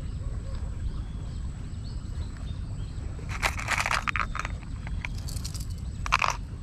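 Hard fishing lures being handled in an open plastic tackle box: short bursts of plastic clicking and clattering about halfway through and again near the end, the last the loudest.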